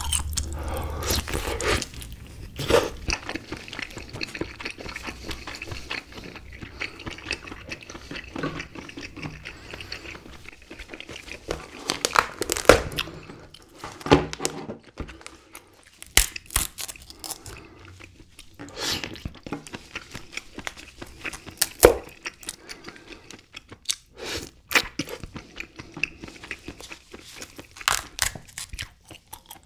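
Close-miked eating of a whole cooked king crab: crab shell cracking and snapping in irregular sharp pops, meat torn from the shell, and wet chewing. The loudest cracks come a little before the middle and again about three quarters of the way in.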